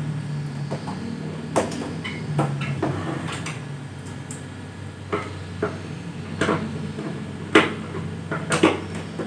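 Plastic clicks and knocks as the air filters are fitted back into a Panasonic wall-mounted AC indoor unit: about a dozen short sharp snaps, the loudest two near the end, over a steady low hum.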